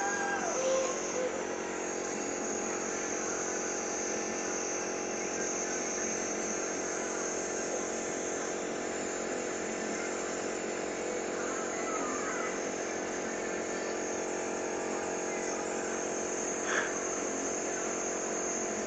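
Electric compressor nebulizer running: a steady hum with a constant high hiss.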